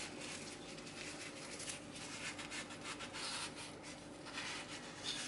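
Faint rubbing and scraping of a folded paper napkin wiped around the rim of a metal stockpot to lift the scum off, over a faint steady hum.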